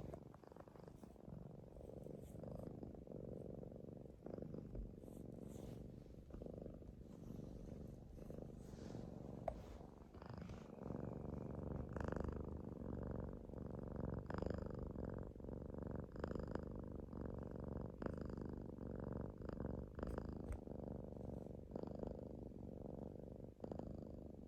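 Domestic cat purring and breathing close up: a steady low rumble that swells with each breath, roughly every two seconds, and grows louder about eleven seconds in.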